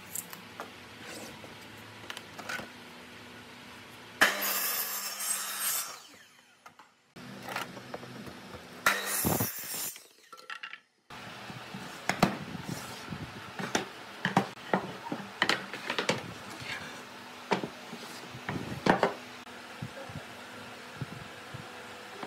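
Makita miter saw cutting through a wooden board twice, each cut a short loud burst, the first running down after the cut. Then many sharp wooden knocks and clatters as cut boards are handled and stacked on a workbench.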